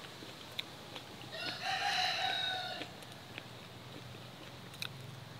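A rooster crowing once: a single long call of about a second and a half, starting about a second in.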